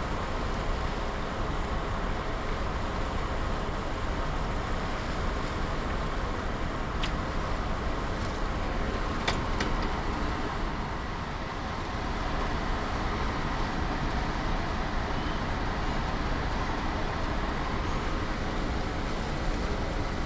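Steady rumble of a ferry under way: engine and machinery hum mixed with wind on the microphone and water rushing along the hull. A few faint clicks come about halfway through.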